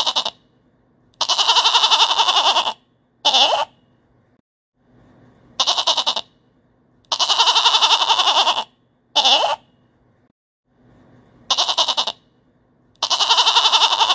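Goat bleating in repeating sets of three calls: a short bleat, a long wavering bleat of about a second and a half, then another short bleat. The set comes round about every six seconds.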